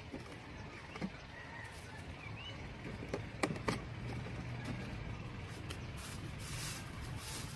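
Empty plastic bottles being moved on dry ground: a few light knocks and clicks, most of them between about three and four seconds in. A low steady hum comes in about halfway through.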